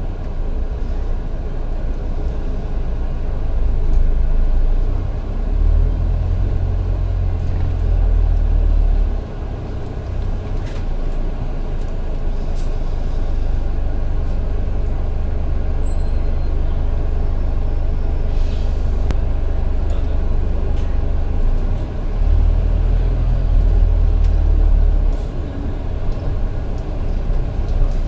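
Bus running, heard from inside: a steady low engine rumble that swells and eases as it pulls away and slows, with a brief hiss of air about two thirds of the way through.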